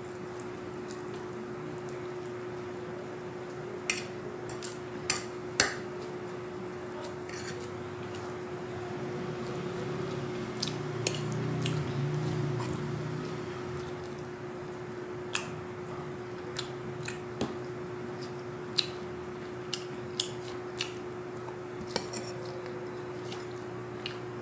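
A metal fork clinking and scraping on a ceramic plate, about fifteen sharp clicks at irregular moments, with chewing in between. A steady low hum runs underneath.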